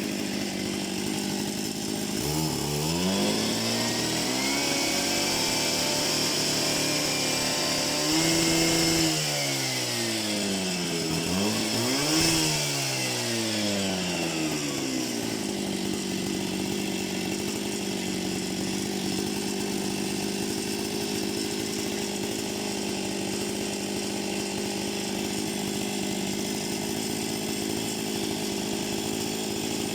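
Partner K650 Active III two-stroke concrete saw idling, then revved up twice, with the pitch climbing and falling back each time, before settling into a steady idle for the second half.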